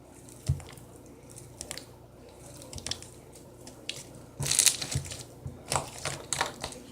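Homemade slime being worked by hand: scattered small crackling pops and squishes, with a longer rustling burst about four and a half seconds in.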